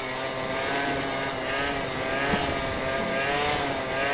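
Two-stroke engine of a Piaggio NRG Power 50 scooter, fitted with a DR 70 cc kit and aftermarket exhaust, held at high revs during a wheelie. Its pitch wavers gently up and down as the throttle is worked to keep the front wheel up.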